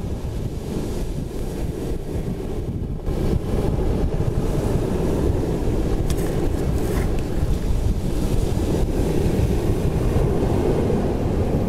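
Wind buffeting the camera's microphone with a steady low rumble, over waves washing onto a pebble beach; the rumble gets louder about three seconds in.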